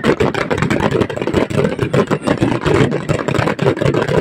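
Dense fireworks barrage: many shells bursting at once and in quick succession, a continuous run of overlapping bangs and crackles with no pause.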